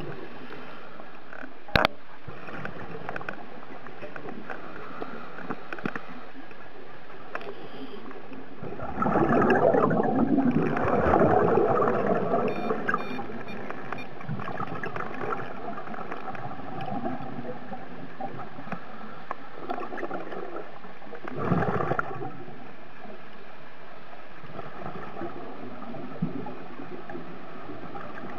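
Scuba regulator exhaust bubbles gurgling underwater in breath-long bursts, a long one about nine seconds in and a short one near twenty-two seconds, over a steady underwater hiss. A single sharp knock about two seconds in.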